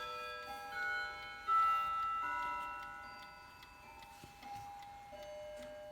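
Other clocks chiming: bell-like notes struck one after another, overlapping and ringing on as they fade, with clocks ticking.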